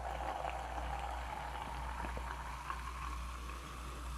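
Carbonated lemon-lime soda poured from a can into a plastic cup, fizzing as it runs. The pitch of the pour rises slowly as the cup fills, then fades near the end.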